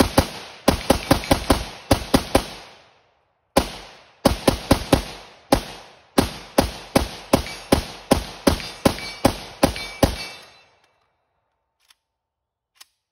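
Palmetto State Armory AK-103 rifle firing 7.62x39 in rapid semi-automatic shots, about three a second with a short break about three seconds in. The shooting stops about ten seconds in, followed by a couple of faint clicks.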